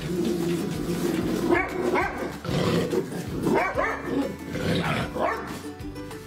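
Dog giving a run of short barks and yips, each sweeping up in pitch, over steady background music.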